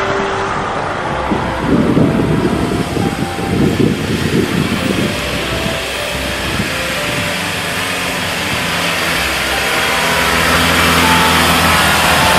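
Land Rover Defender engine running at low speed as the 4x4 crawls up a muddy track, growing louder as it comes close near the end. Uneven low rumbling bursts come and go from about two to five seconds in.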